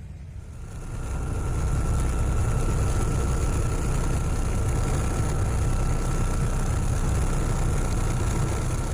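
Boat engine running steadily with a low rumble and a faint steady whine above it, swelling about a second in.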